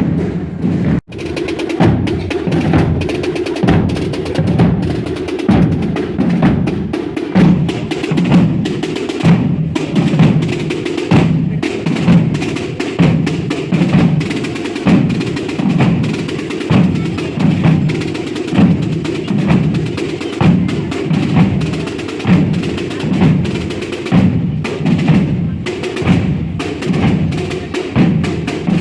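Procession drums of a Holy Week drum band playing a steady, repeating marching beat, with one brief break about a second in.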